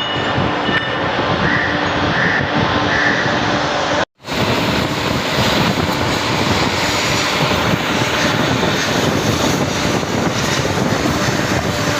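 Loud, steady machine noise with no clear rhythm, broken by a sudden brief cutout a little over four seconds in before carrying on unchanged.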